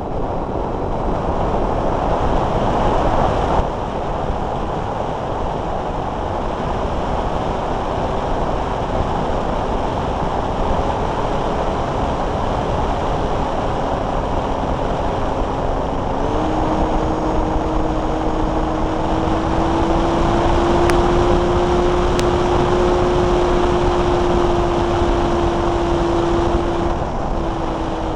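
Airflow rushing over the onboard camera of a Multiplex Blizzard electric RC hotliner in flight, under a steady hum from its electric motor and propeller. About halfway through the hum steps up in pitch and creeps higher, then drops near the end.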